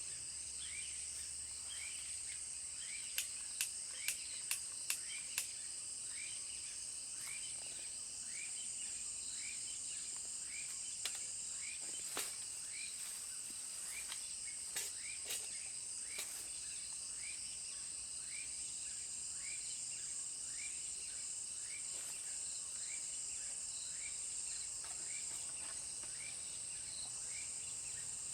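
Insects chirring in a steady high-pitched chorus, with a short call repeating about twice a second beneath it. A quick run of six sharp clicks comes about three seconds in, and a few more scattered clicks follow around the middle.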